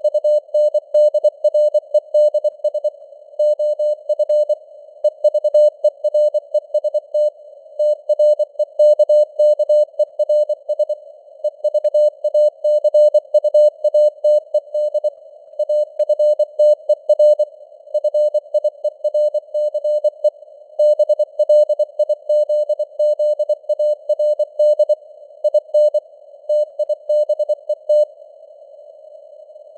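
Morse code (CW) sent at 24 words per minute: a single mid-pitched tone keyed on and off in quick dots and dashes, with short gaps between letters and words. Underneath is a steady band of hiss from simulated radio noise. There is a pause of about a second and a half near the end.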